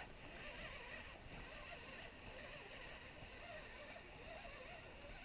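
Near silence: faint outdoor ambience with a steady low hiss and nothing distinct.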